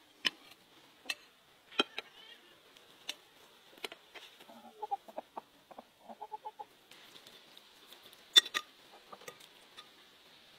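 Hens clucking in a short run of soft, quick notes around the middle, with scattered sharp clinks of cutlery on china plates.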